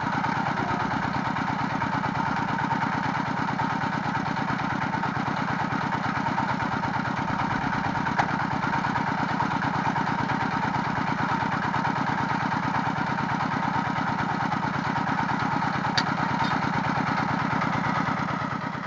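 Engine of a water-well drilling rig running steadily at a constant speed, with a couple of brief sharp clicks about eight seconds apart.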